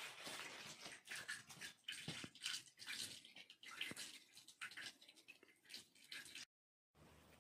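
Faint trickle of water running from the metal spout of a stone drinking fountain and splashing into its basin, breaking off for a moment near the end.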